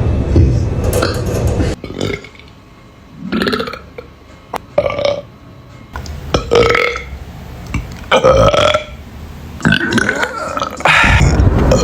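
A boy burping over and over: a string of short, pitched burps one to two seconds apart. They follow a loud low rumbling noise in the first two seconds or so.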